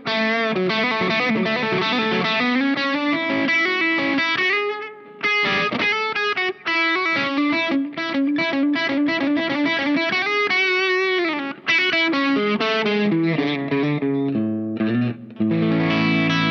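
Electric guitar played through the overdrive side of a Caline Key West pedal, its Zendrive-style, Dumble-flavoured drive: single-note lead lines with string bends, then chords near the end.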